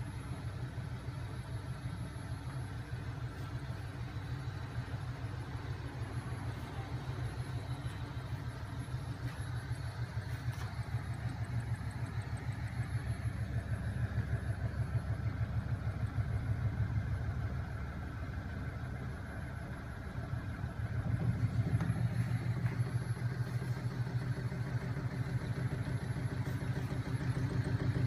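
Homemade magnet-driven crankshaft machine running, its small 12 V electric motor spinning heavy flywheels: a steady mechanical hum with a fast, even pulsing. It dips briefly about two-thirds of the way through, then runs louder.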